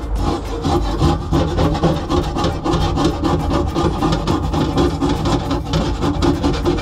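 Timber being worked by hand with a saw or rasp: steady back-and-forth strokes on the wood, about two a second.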